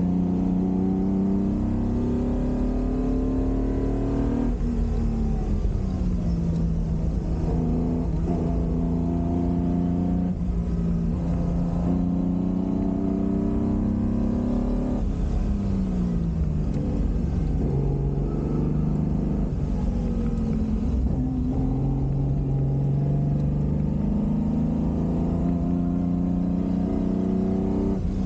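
Ferrari 250 GT Drogo's V12 engine heard from inside the cabin while driving on a mountain road, under wind and road noise. The engine's pitch climbs steadily under acceleration and drops back sharply several times as it comes off the throttle or changes gear.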